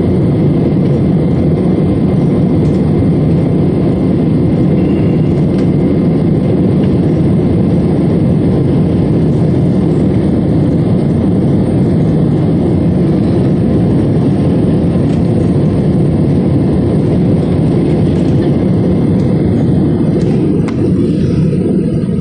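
Steady in-flight cabin noise of an Airbus A320-family airliner, heard from a window seat over the wing: a loud, low, unbroken rumble of engines and airflow.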